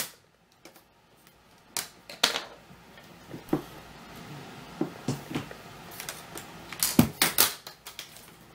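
Plastic screen bezel of a Lenovo IdeaPad N580 laptop clicking and snapping as its clips are pried loose with a small screwdriver: irregular sharp clicks, with a quick cluster of them about seven seconds in.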